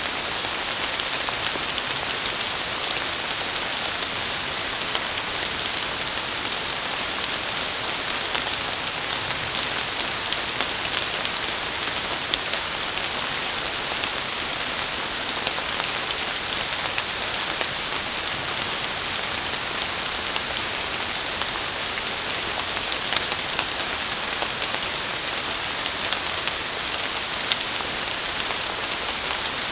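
Steady rain falling on forest leaves: an even hiss scattered with the small taps of single drops.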